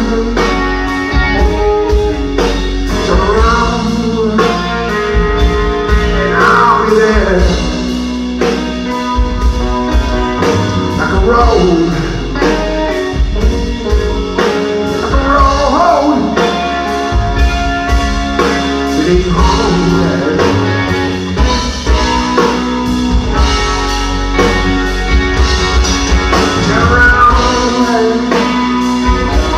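A blues-rock trio playing live: electric guitar with bent notes over bass guitar and a drum kit keeping a steady beat.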